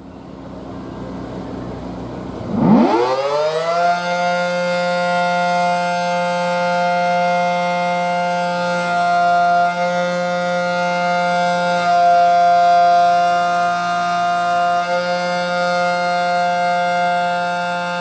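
Federal Signal SD10 tornado siren starting up: the motor spins up, a fast rising wail comes about two and a half seconds in, and then it holds a steady tone, the alert signal, its loudness swelling and dipping slightly.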